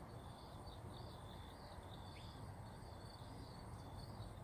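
Faint outdoor chorus of insects trilling in a steady pulsing rhythm, with one short, falling bird chirp about two seconds in.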